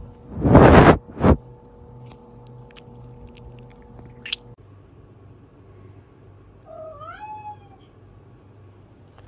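Domestic cat giving one short meow that bends up and down in pitch, past the middle. Before it, two loud hissy bursts near the start and a few sharp clicks.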